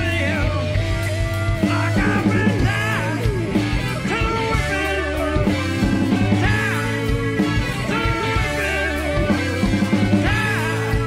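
Live rock band playing: distorted electric guitar over bass and drums, with a man singing into the microphone.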